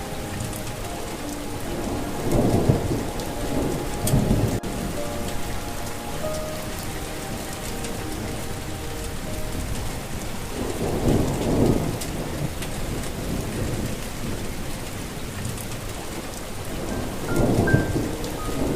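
Steady rain with rolling thunder rumbling three times, a little after the start, around the middle and near the end, under a soft sustained melody.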